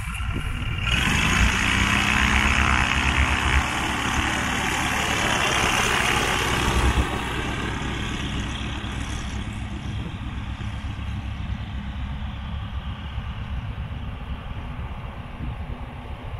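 Weller V3 Rebell ultralight's engine and propeller coming up to take-off power about a second in, the pitch rising. It stays loud for several seconds, then fades steadily as the aircraft rolls away and climbs out.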